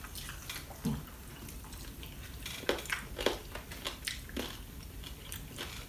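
People eating at the table: quiet chewing with scattered mouth smacks and clicks.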